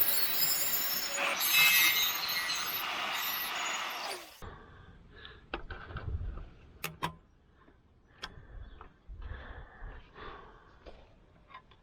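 About four seconds of loud, harsh metalworking noise on car-body sheet steel, which cuts off abruptly. It is followed by quiet clicks and light knocks as the steel patch is handled and set in place.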